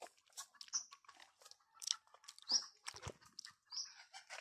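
A cow chewing and cropping grass close to the microphone: faint, irregular crunching and crackling.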